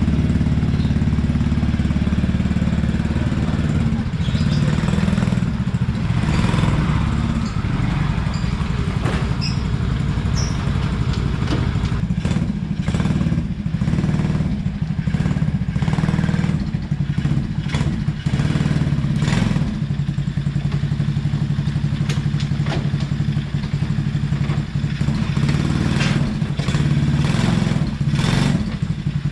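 Small engine of a 150cc mini jeep idling steadily, with scattered light clicks and knocks over it.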